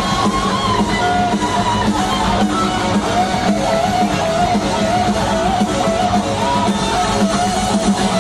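Hard rock band playing live, heard from the audience in an arena: an electric lead guitar plays a bending, wavering melody over drums and bass.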